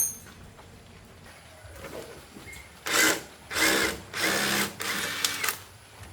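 A small electric motor, like that of a power drill, run in four short bursts from about three seconds in, its whine rising and falling at the start and end of each burst.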